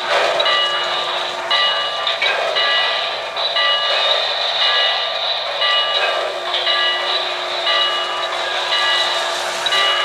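O-gauge model New York Central Hudson steam locomotive running slowly on three-rail track, with the running noise of the train under a bell ringing steadily in short, evenly repeated strokes.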